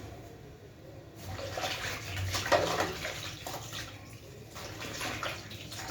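Tap water running and splashing, starting about a second in, uneven in strength.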